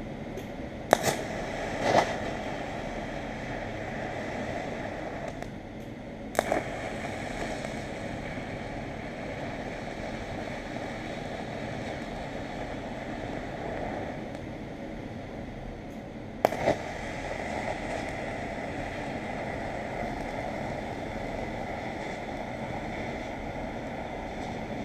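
Steady hiss of a TIG welding arc joining two steel nuts, stopped and restarted a few times with a sharp click at each restart.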